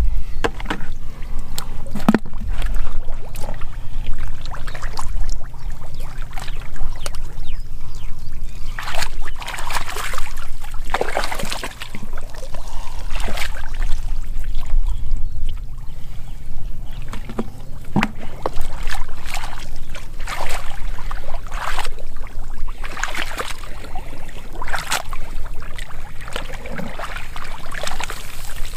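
Shallow muddy water sloshing and splashing in irregular strokes, over a steady low rumble.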